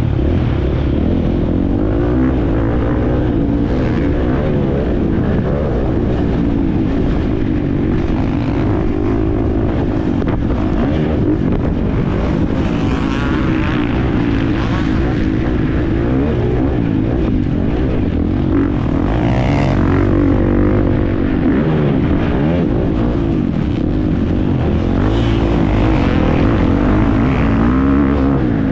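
Husqvarna FC350 single-cylinder four-stroke motocross bike engine running hard under race load, its pitch rising and falling with the throttle and gear changes, with rushing wind noise.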